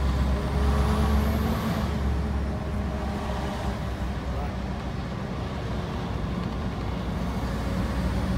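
Scania R730's 16-litre V8 diesel engine running as the truck drives, heard through the open cab window on the exhaust side. The deep drone is loudest for about the first two and a half seconds, then eases off slightly.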